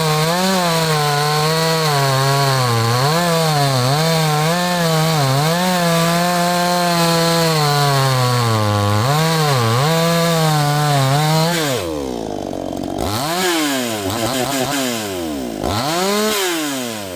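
Two-stroke chainsaw cutting through a maple round at full throttle, its pitch dipping and recovering as the chain loads up in the wood. About twelve seconds in it comes out of the cut and is revved twice, falling back toward idle between.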